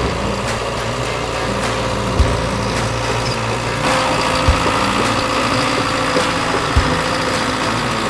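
Small crawler dozer's diesel engine running steadily as the blade pushes loose dirt, working harder and louder about halfway through. A soft low thump recurs about every two seconds.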